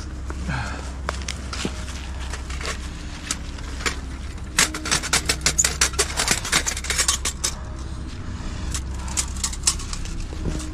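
Camping gear being handled and packed up by hand: a run of quick crackling rustles and clicks, densest a few seconds in and again briefly near the end, over a steady low rumble.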